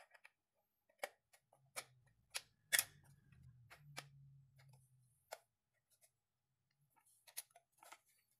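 Sharp, irregular clicks and taps from a plastic acrylic LED lamp being handled while someone tries to switch it on; the lamp will not light. A faint low hum runs through the middle few seconds.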